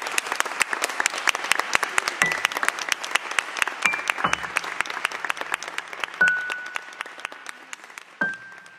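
Audience applauding, dense clapping that gradually dies down. A few single, sustained high notes of music sound over it from about two seconds in.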